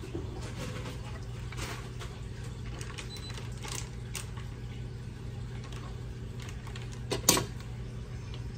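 A serving utensil clinks lightly against a pot and plate as broccoli is served, over a steady low hum. There is one sharp knock about seven seconds in.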